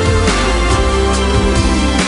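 Background music with a steady beat and a held, slowly bending melody line.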